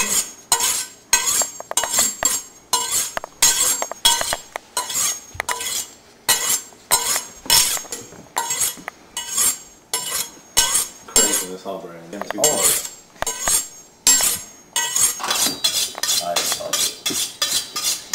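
Chef's knife being steeled: the blade swiped again and again along a honing steel, quick metallic scraping strokes with a light ring, about three a second and a little quicker near the end.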